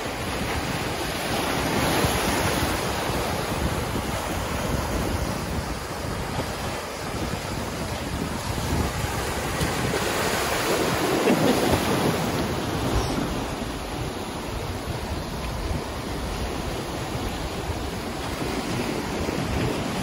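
Ocean surf breaking and washing over a rocky shore in a steady rush, with a bigger wave crashing about ten seconds in. Wind buffets the microphone underneath.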